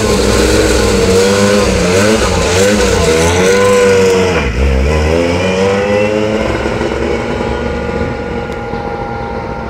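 Lancia 037 rally car's supercharged four-cylinder engine accelerating hard, its pitch rising and dropping several times through the gears. After about six seconds the note steadies and fades as the car drives off.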